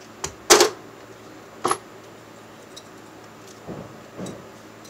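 Sharp metallic clinks and knocks of tools and fittings being handled while hooking up a water heater's water lines. The loudest clack comes about half a second in and another about a second later, then two softer thumps near the end.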